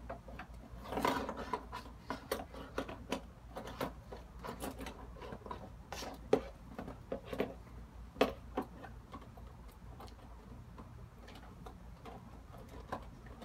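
Cardboard box and plastic packaging being handled while a toy figure is worked free from it: irregular clicks, taps and a short rustle about a second in, thinning out after about nine seconds.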